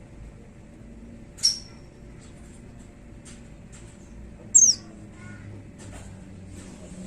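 White-eye (pleci) giving two loud, sharp, high calls about three seconds apart, each falling quickly in pitch, with faint short chirps between them.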